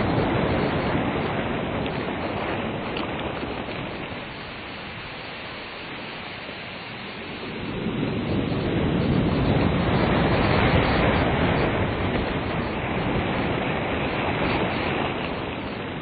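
Ocean surf washing onto a beach: a wave's rush fades to a lull about halfway through, then another wave surges in and breaks, its wash easing near the end.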